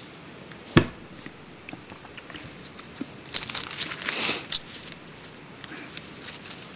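Paper rustling and crinkling, as of sheets of notes being handled and turned on a lectern, with one sharp knock a little under a second in and a louder rustle around the middle.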